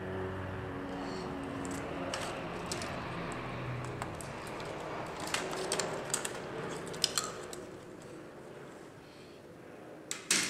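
The plastic palmrest cover of an HP Pavilion dv6000 laptop being pried and lifted off the chassis: scattered plastic clicks and rustling as the clips let go, with one sharper clack near the end.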